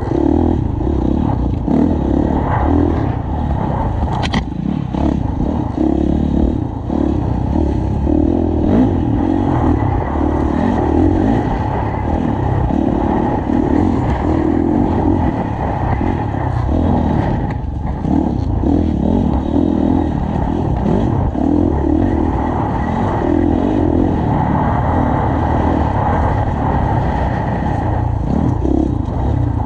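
Off-road dirt bike engine under hard riding, its note swelling and dropping with the throttle every second or so, heard from the rider's helmet. A single sharp tick about four seconds in.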